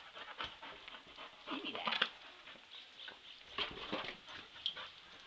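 Young golden retriever / Chesapeake Bay retriever mix panting, with a short whine about two seconds in.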